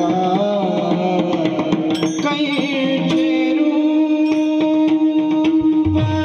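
Devotional singing, a man's voice with ornamented, wavering notes, accompanied by a mridang (pakhawaj) playing sharp strokes. A steady held note comes in about three seconds in, and deep bass drum strokes join near the end.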